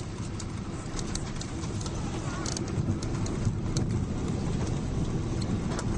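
Cabin noise of a Boeing 777-300 airliner: a steady low rumble with irregular light clicks and rattles, growing slightly louder about two seconds in.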